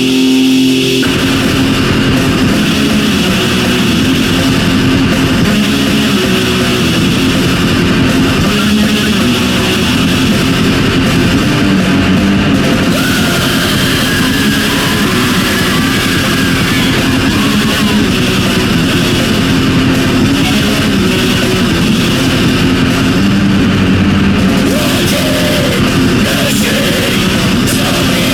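Heavy metal band playing: distorted electric guitar over drums, loud and dense without a break. The full band with drums comes in about a second in.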